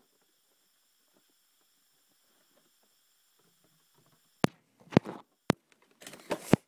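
Near silence for about four seconds, then three sharp knocks about half a second apart and a short rustle near the end: handling noise as the phone and the kit's contents are moved.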